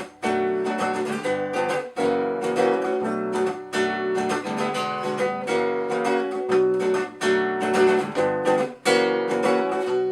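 Acoustic guitar strummed in a steady rhythm, the instrumental introduction to a song.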